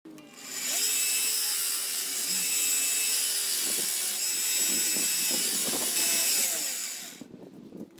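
Combination bench grinder and belt sander running while a knife's handle is pressed against the sanding belt. The grinding makes a loud, steady, hissing scrape over a high motor whine, and it stops about seven seconds in.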